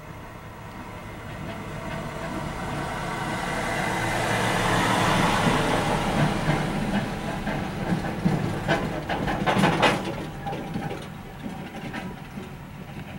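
John Deere diesel tractor running under load as it pulls a 4690 small square baler past, growing louder to a peak about halfway through and then fading. A quick run of sharp clacks from the baler comes about two-thirds of the way in.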